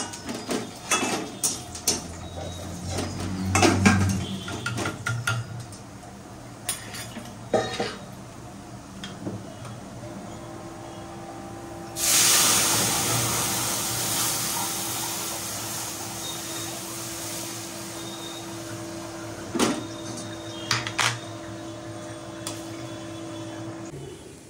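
Dishes and cutlery clinking and clattering in short knocks. About halfway through a steady hiss starts suddenly and slowly fades.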